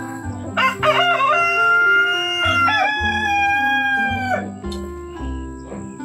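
A rooster crowing once: one long crow of nearly four seconds that rises at the start, holds, then breaks to a new pitch about halfway and holds again before cutting off. Background music plays underneath.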